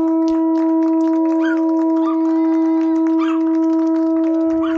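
A conch shell horn blown in one long, steady note, held unbroken, with faint chirps above it.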